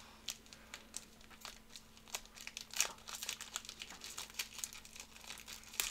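Foil wrapper of a trading card pack crinkling and tearing as it is opened by hand, in scattered small crackles.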